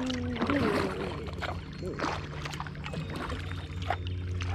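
Kayak paddling: scattered paddle strokes with water splashing and dripping off the blade, over a steady low hum. A voice trails off right at the start.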